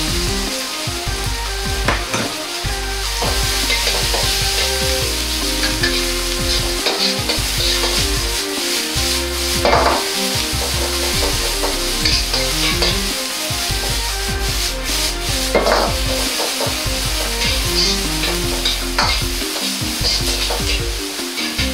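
Julienned green pepper and bamboo shoots sizzling in hot oil in a wok while a ladle stirs and tosses them, with a few louder scrapes of the ladle against the wok.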